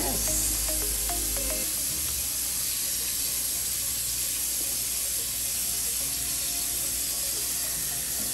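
Kitchen tap running steadily as cold water pours over cooked fettuccine in a plastic colander in the sink, while hands turn the pasta. Soft background music plays in the first couple of seconds.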